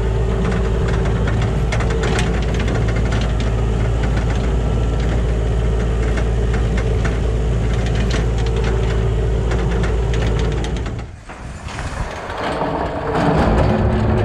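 Kubota KH 60 mini excavator's diesel engine running steadily with a rough, knocking sound. It cuts off suddenly about eleven seconds in, and a rough noisy rumble follows near the end.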